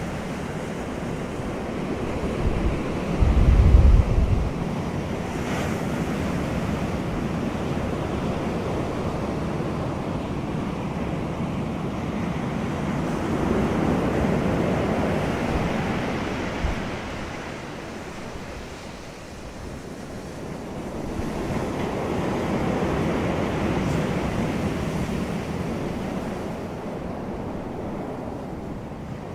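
Ocean surf: waves breaking and washing in continuously, the rush swelling and fading slowly with crests roughly ten seconds apart. A brief low rumble about three seconds in is the loudest moment.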